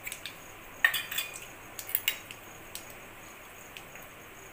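Mustard seeds popping in hot oil in a metal kadai, the first step of tempering. A metal clink with a short ring about a second in, then scattered sharp pops that thin out over the next few seconds.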